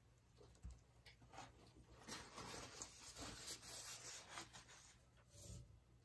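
Faint rustling and rubbing with a few light taps, strongest from about two to five seconds in: hands handling things at the work table.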